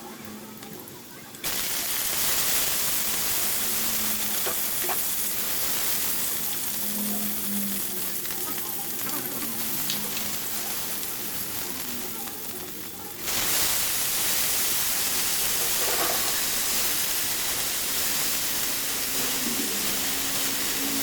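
Food frying in hot oil: a steady loud sizzle that sets in suddenly about a second and a half in and grows louder in a step near the middle.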